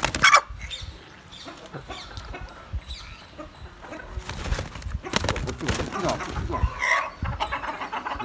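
Chicken clucking while it is held and handled, with a sudden loud rustle right at the start and a busier stretch of rustling and clucks in the second half.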